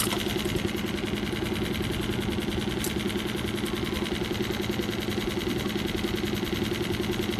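Small outboard motor idling steadily, with a fast, even pulse.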